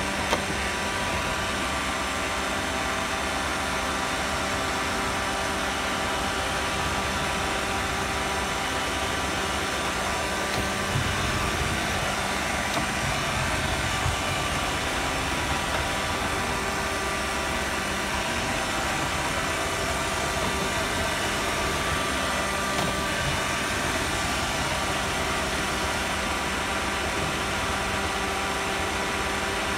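Roomba robot vacuum running, heard from a phone riding on top of it: a steady whirring hum of its motor and brushes with several steady tones. A few small knocks come between about 11 and 14 seconds in.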